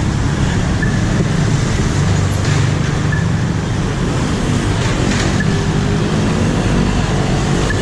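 Street traffic: vehicle engines running with a steady low rumble, with two brief hisses about two and a half and five seconds in.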